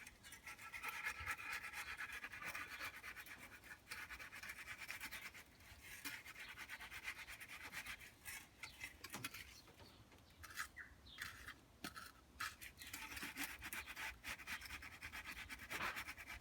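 A hand tool scraping and rubbing over wet concrete in quick strokes; the strokes thin out to scattered scrapes and clicks midway and pick up again near the end.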